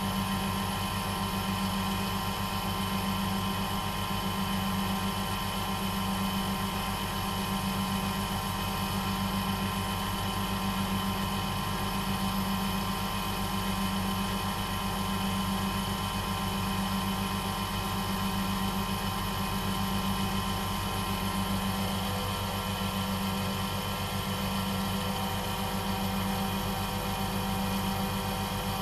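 Small wood lathe running steadily at speed, a steady motor hum with a strong low tone, as a wax finish is buffed onto a spinning wooden pen blank.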